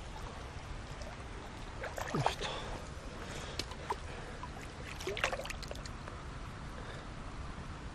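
Small rainbow trout splashing at the surface of the water as it is brought to hand at the pond's edge: a few short splashes, the loudest about two seconds in and again about five seconds in.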